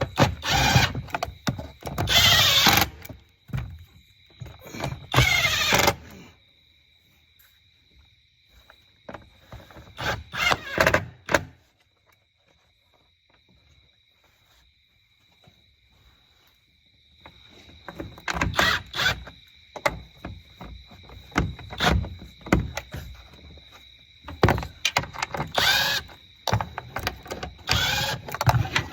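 Cordless impact driver run in short bursts of about a second, driving in the air box screws, with quiet gaps between them. A faint steady high tone runs under most of it.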